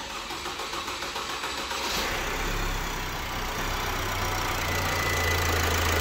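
Opel Insignia A's 2.0 CDTI four-cylinder diesel being started on the starter: it cranks briefly, catches about two seconds in, then idles steadily. The engine has a newly replaced timing chain.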